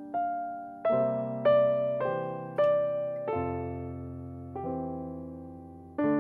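Background music: a piano playing a slow, gentle melody, single notes struck and left to ring and fade.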